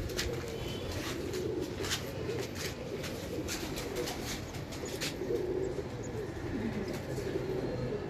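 Domestic pigeons cooing, low warbling coos going on throughout, with a scattering of sharp clicks, most of them in the first half.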